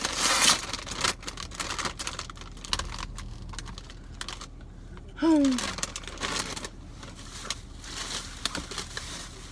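Plastic bags and food packaging crinkling and rustling as they are handled, with many small clicks and taps and a louder rustle right at the start. A short falling voice sound comes about five seconds in.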